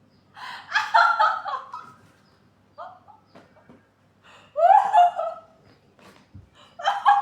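High-pitched laughter in three bursts: about half a second in, around five seconds in, and again at the end.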